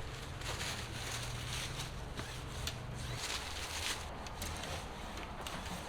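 Irregular rustling and soft crackling, like light handling or movement, with a faint low hum that stops about three seconds in.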